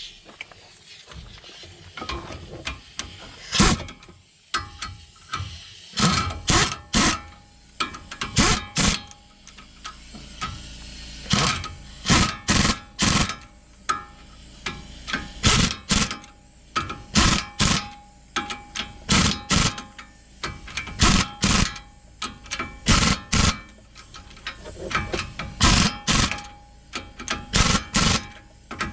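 Hammer blows on steel, in quick clusters of two to four strikes with short pauses, each leaving a brief metallic ring, while a truck's front hub assembly is worked loose.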